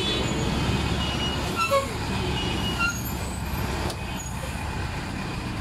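Mixed road traffic moving across: a loaded dump truck's engine running as it rolls over the tracks, among motorbikes and auto-rickshaws, under a steady low rumble. A few short high chirps or toots come about a second and a half in and again near three seconds.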